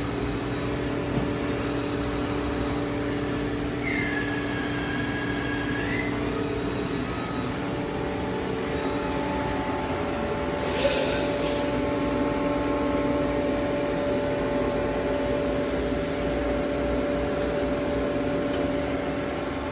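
Romi C420 CNC lathe running under power: a steady machine hum with a whine that rises, holds for about two seconds and drops away. A short hiss comes about eleven seconds in, and after it the hum settles onto a different steady pitch.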